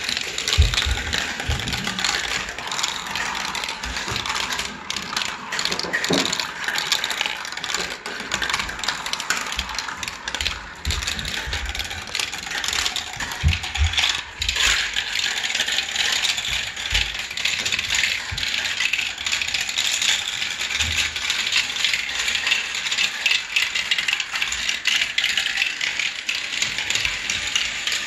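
Marbles rolling and clattering through a plastic marble run's tubes, chutes and funnels: a dense, continuous rattle of small clicks. A few low thumps come in near the start and about halfway through.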